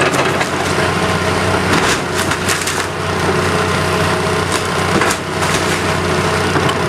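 Engine of a heavy demolition machine running steadily while the wooden structure of a house cracks and splinters, around two to three seconds in and again near five seconds.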